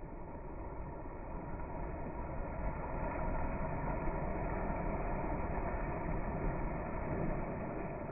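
Soft sea waves washing in, a steady rush that swells a few seconds in and eases again near the end.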